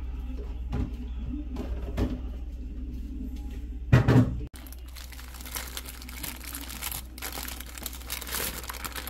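Paper burger wrapper crinkling and rustling continuously as hands unwrap a burger, starting about halfway through. Before that, a single low thump about four seconds in, over a steady low hum.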